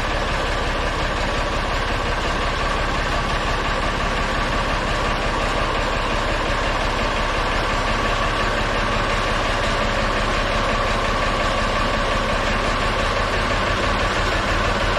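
Ford 4500 tractor's engine running steadily at about idle.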